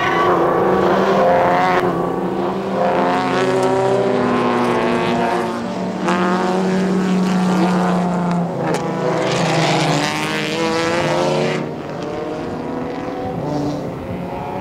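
Several race car engines revving hard as the cars accelerate away in a pack. Each engine climbs in pitch, breaks off at an upshift and climbs again, every two seconds or so. The sound gets quieter about twelve seconds in.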